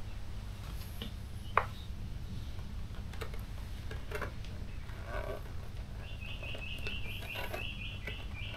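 Small handling sounds of plastic parts and wiring being fitted at the motorcycle's front, a few light ticks and one sharp click about a second and a half in, over a low steady hum. In the last couple of seconds, short high chirps repeat several times a second.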